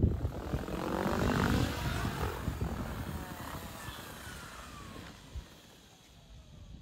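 SAB Piuma electric RC helicopter with a Pyro 700 motor: rotor blades beating with the electric motor's whine. The whine falls in pitch and the whole sound fades away over the last few seconds as the rotor slows.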